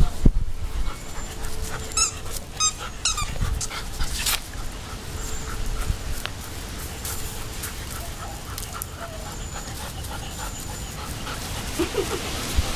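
Borzoi panting and moving about in play, with rustling and thuds. There are clusters of short high squeaks about two to three seconds in and again near the end.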